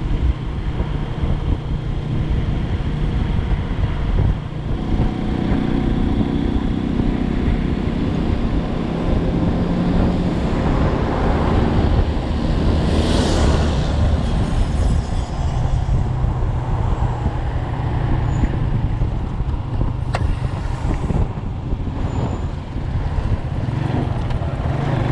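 Motorcycle engine running at road speed, mixed with wind and road noise, its pitch shifting a few times. About 13 s in, a passing vehicle rushes by.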